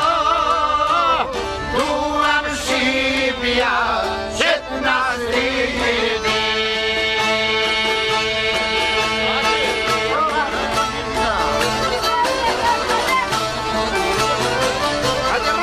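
Albanian folk ensemble playing live: çiftelis, accordion and violin together. A singer's voice with wide vibrato ends about a second in, and the instruments carry the melody on alone.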